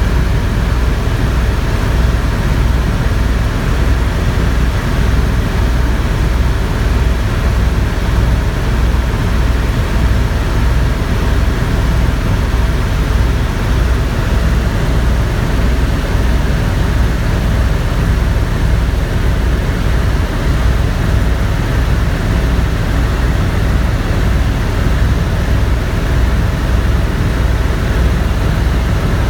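Helicopter in flight: steady, loud rotor and engine noise with a regular low pulse from the blades.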